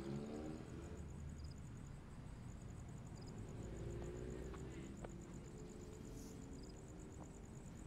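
Faint night ambience: a cricket chirping in a rapid, even, high-pitched pulse, over a low hum.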